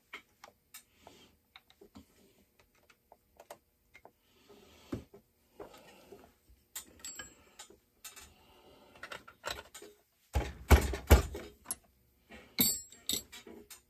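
Scattered clicks, taps and metal clinks of hand tools and parts being handled while a two-stroke chainsaw is taken apart, with a louder clatter of knocks and thumps about ten seconds in.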